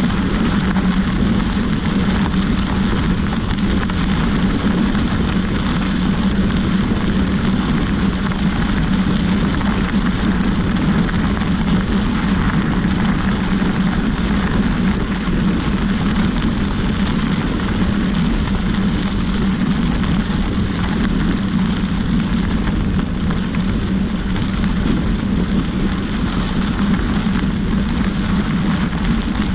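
Steady rumbling rush of wind across the microphone while moving along a trail, with no breaks or separate events.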